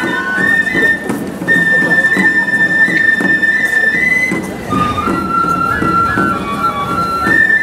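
Festival flute music: a high transverse flute holds long notes, steps down to a lower note about five seconds in, and climbs back near the end, over a busy lower accompaniment.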